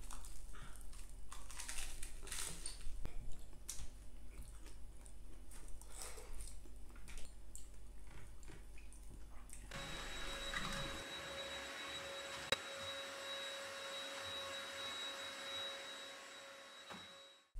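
Scattered light clinks and knocks of cutlery and tableware at a meal; then, about ten seconds in, a stick vacuum cleaner runs steadily with a hum and a thin high whine, fading out near the end.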